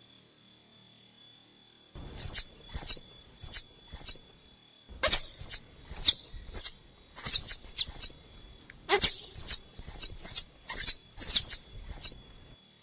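Squirrel lure call: sharp, high-pitched chirps, each a quick downward sweep, in three bouts of rapid calls starting about two seconds in. A faint steady high tone runs underneath.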